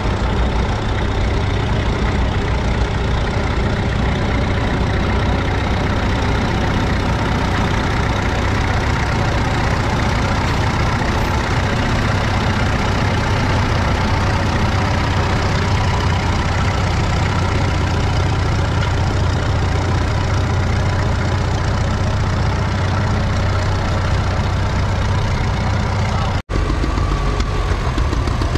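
Case 830 tractor engine running steadily. Near the end it cuts off abruptly to a different tractor engine running.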